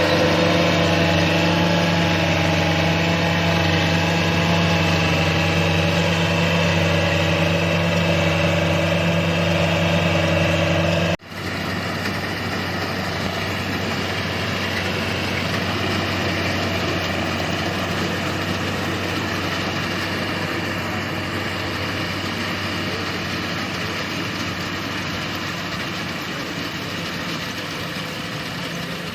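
Rice combine harvester's engine running steadily with a strong even hum. About eleven seconds in the sound breaks off for an instant and comes back rougher and less tonal.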